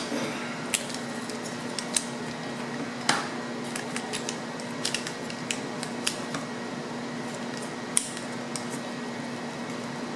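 Irregular small clicks and taps of a suction-cup opening tool being fitted and worked against an iPhone 6s's glass screen, over a steady low hum.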